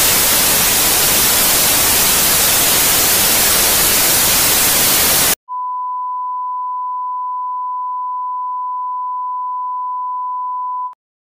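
Television static hiss for about five seconds, cutting abruptly to a steady single-pitch test-tone beep of the kind played with colour bars, which stops suddenly near the end.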